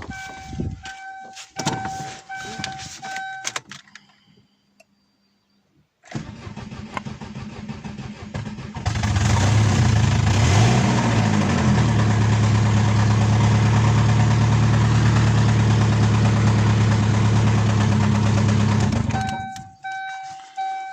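Chevrolet Aveo engine started about nine seconds in and left running steadily for about ten seconds, then cut off. The engine has run with no oil and is knocking: the owner takes it for a piston hitting the head, with no oil pressure at all. A repeating beep sounds at the start and again near the end.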